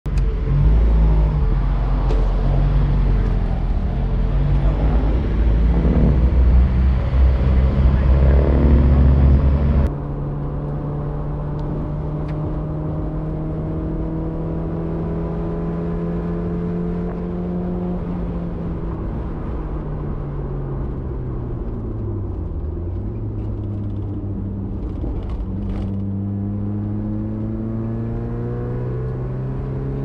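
Mazda MX-5 Eunos inline-four engine running under load, heard from on board, its pitch climbing steadily with the revs, dipping briefly about two-thirds of the way through and then rising again. Before that, a loud low rumble cuts off suddenly about a third of the way in.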